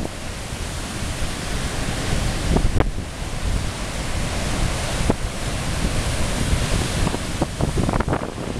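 Rough, stormy sea surf breaking and churning over a rocky shore in a continuous loud wash. Wind buffets the microphone, with a few sharp pops about 3 and 5 seconds in and several more near the end.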